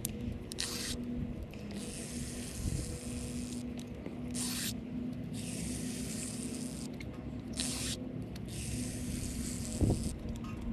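Hand pump pushing fresh brake fluid in through a rear brake caliper's bleeder screw, reverse-bleeding the brakes up to the master cylinder: a hissing stroke about every three seconds, each ending in a short sharper hiss.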